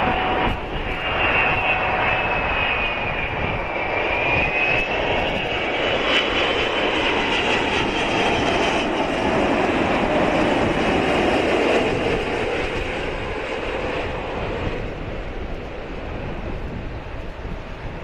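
Four-engined Airbus A380 jet engines running on approach, a steady roar with a high whine that dips and then rises in pitch a few seconds in as power changes, fading slightly near the end. Strong wind rumbles on the microphone.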